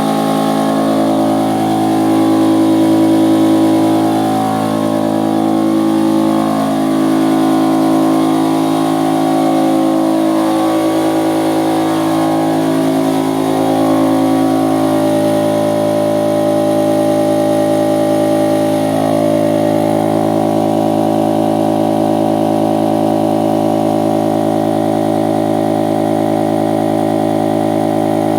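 Stermay outboard motor running steadily, its pitch wavering a little in the first half before settling.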